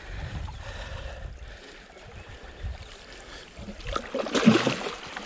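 Low rumble of water and wind around a small boat, then scuffing and knocks from about four seconds in as someone shifts about on the boat's deck.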